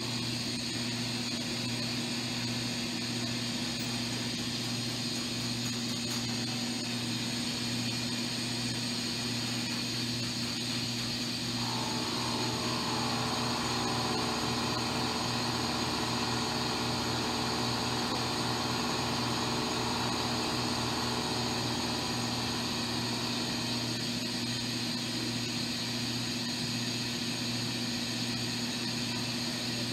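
Zeiss coordinate measuring machine running as its stylus probe measures the roundness of a milled hole: a steady mechanical hum. A higher whine joins for about ten seconds in the middle.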